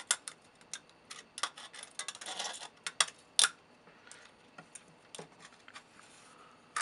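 Scissors snipping the thin aluminium wall of a soda can as its cut edge is trimmed: a run of irregular sharp clicks that thins out after the first few seconds.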